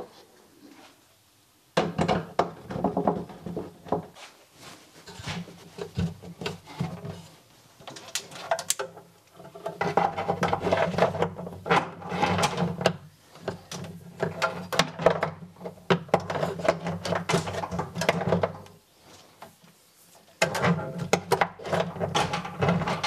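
Knocks, scrapes and rustling of hands fitting a plastic enclosure against a fibreglass-lined cabinet wall and pushing its cables through, in stretches broken by short pauses.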